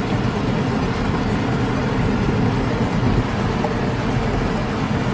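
Mitsubishi Galant VR-4 engine running under load, with tyres scrabbling on loose dirt as the all-wheel-drive car spins tight circles (dirt donuts), heard from inside the cabin as a loud, steady din.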